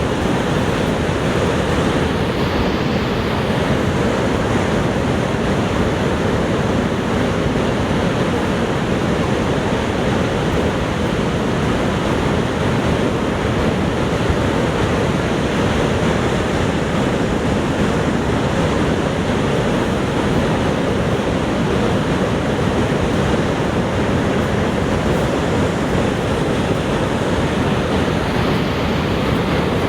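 Niagara Falls: a huge mass of falling water rushing steadily, an even, unbroken noise that is heaviest in the low range.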